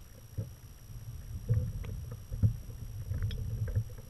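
A fishing kayak being pedalled slowly: water sloshing and rumbling against the hull, with a few light knocks.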